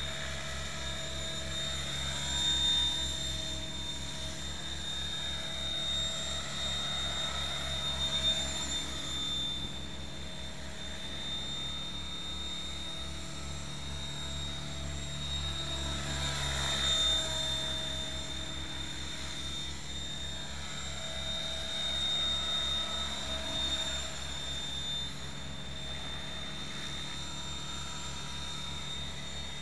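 Logo 600 electric RC helicopter flying passes: the whine of its motor and rotors swells and fades, bending in pitch each time it comes close, several times, loudest about halfway through.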